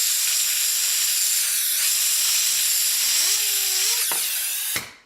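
Compressed air from an air compressor blasting into a small Delta cooling fan from a server power supply. It spins the fan up, and a rising whine from the fan climbs beneath the loud hiss. The air blast cuts off abruptly near the end; this is a spin-down test of the fan's freshly oiled, previously dry bearing.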